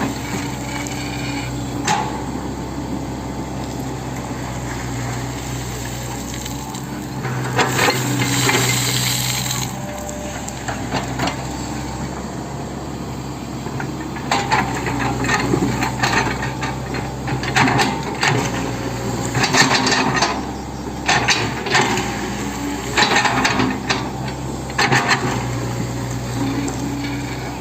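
Hitachi 110 M excavator's diesel engine running steadily, with repeated bursts of metallic clanking and scraping as the machine works the soil. The clanking comes most often in the second half.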